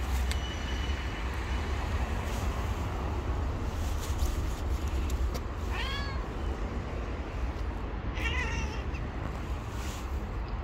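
A cat meowing twice, short arched calls about six and eight seconds in, over a steady low rumble.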